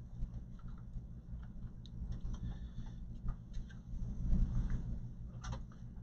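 Light clicks and taps of cables and connectors being handled inside a desktop computer case, over a steady low hum.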